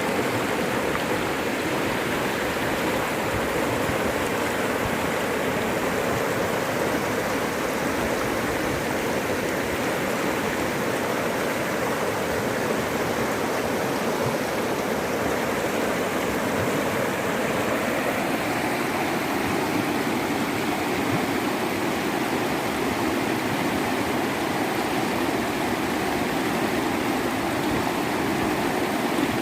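Fast-flowing floodwater rushing in a steady, unbroken roar.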